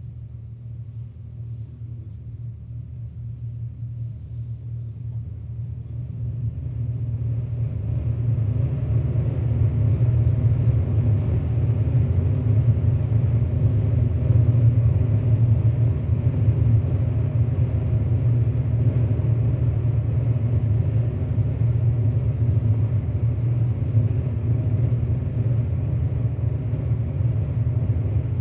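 Analog synthesizer noise music: a deep, dense low drone that swells in loudness over the first several seconds, with a hiss of higher noise coming in about seven seconds in, then holding steady and loud.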